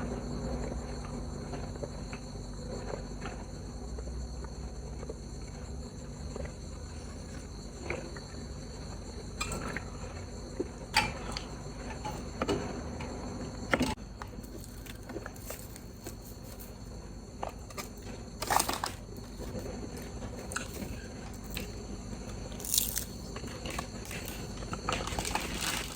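Eating sounds: quiet chewing with scattered short, sharp crunches and clicks a few seconds apart.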